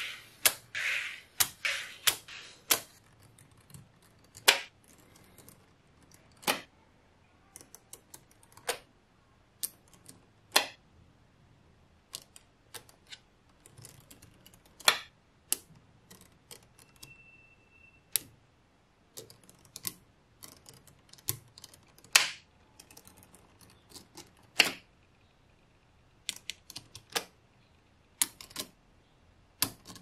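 Small magnetic balls clicking as they snap together and are set in place. The sharp clicks come irregularly, about one to several a second, some much louder than others.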